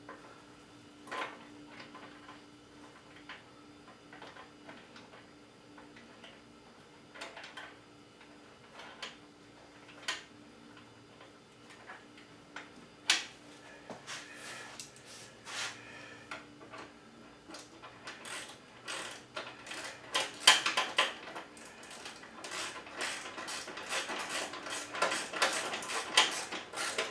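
Hand tools and metal hardware clicking and tapping at a motorcycle fitting: scattered single clicks and knocks, then, from about two-thirds of the way in, a quick run of many clicks close together.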